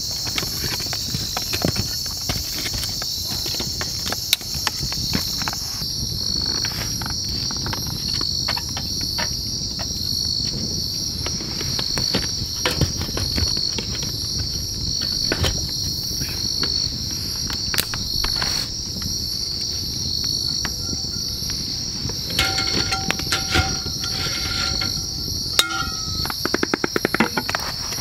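Insects chirping in a steady, pulsing high trill over a burning wood campfire that gives off irregular sharp pops and crackles. A quick run of rattling clicks comes near the end.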